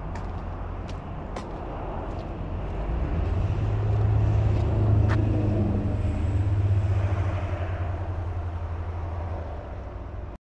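A road vehicle driving past, its low rumble swelling about three seconds in and fading away over the next several seconds.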